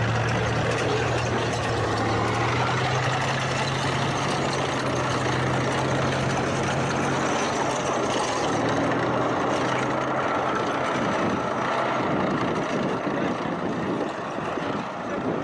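Tank engine running, a steady low drone under loud, even mechanical noise; the drone weakens about halfway through while the noise carries on.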